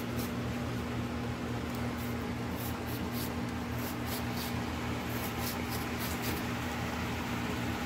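A steady appliance hum runs throughout. Over it come faint crisp ticks, about three a second, as a large kitchen knife slices strips off a green bell pepper held in the hand. The ticks thin out near the end.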